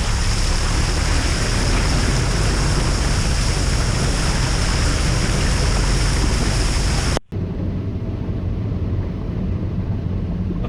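Car driving through floodwater, with a loud, steady rush of water spraying against the car. About seven seconds in the rush stops abruptly, leaving the quieter running of the car.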